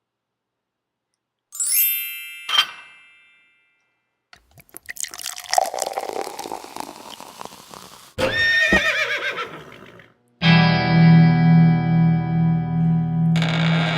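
A string of short comic noises: two bell-like dings, a crackling fizz like a poured fizzy drink, a horse-like whinny, then a steady pulsing buzzer that carries on to the end.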